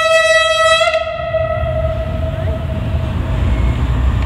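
Diesel locomotive horn sounding one steady single-tone blast that stops about a second in, followed by the low rumble of the locomotive and its freight wagons coming closer; the horn cuts in again right at the end.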